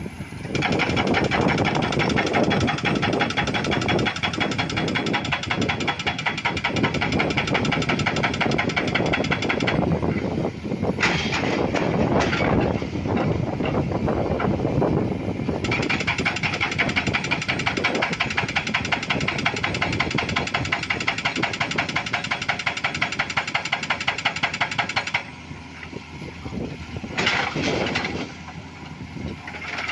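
Excavator-mounted hydraulic rock breaker hammering rock in rapid, even blows. It runs in two long spells of about ten seconds each, with a rougher, broken stretch between them. The hammering stops about five seconds before the end, leaving quieter engine sound and a few short bursts.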